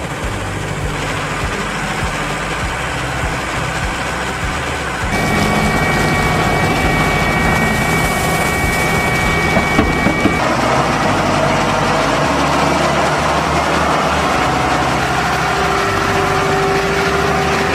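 Diesel tractor and farm machinery engines running steadily, with a feed mixer. The sound steps louder about five seconds in, with a thin steady whine until about ten seconds in, and then changes again.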